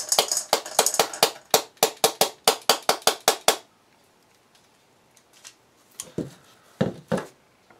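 A cut-open 60 gram aerial shell casing tapped over a ceramic bowl to knock out its stars and burst charge: a quick run of sharp taps, about five a second, that stops after three and a half seconds. A few duller knocks follow near the end as the emptied casing is set down on the bench.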